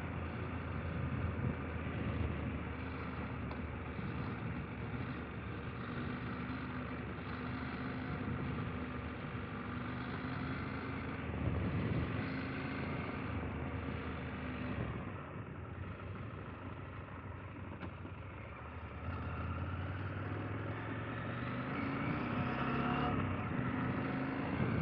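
KTM 890 Adventure R's parallel-twin engine running as the motorcycle is ridden, its note dropping about fifteen seconds in and rising again a few seconds later.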